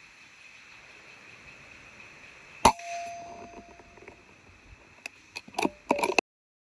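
Air rifle firing once: a single sharp crack with a short ringing tone after it, followed about two seconds later by a few quick sharp clicks and knocks. A steady high drone runs underneath, and the sound cuts off suddenly near the end.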